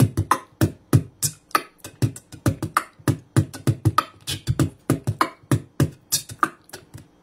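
Beatboxing close up into a handheld dynamic microphone with a foam windscreen: a fast run of mouth percussion, deep kick-like thumps alternating with sharp hissing snaps at about four a second, stopping near the end.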